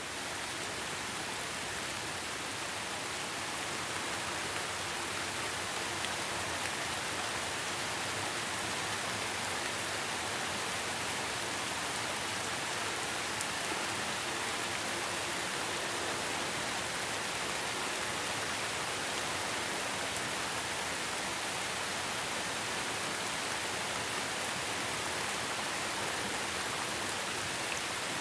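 Heavy rain falling steadily as an even, unbroken hiss of drops.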